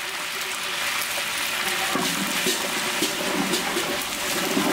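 Spice paste frying in hot oil in a large aluminium cooking pot: a steady sizzling hiss.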